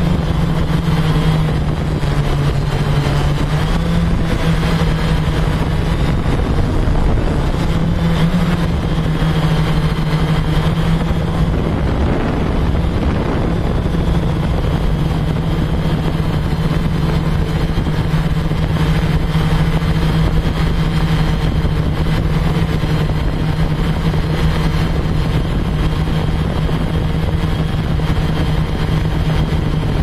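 Blade Chroma quadcopter's motors and propellers humming steadily, the pitch wavering slightly now and then as it holds position.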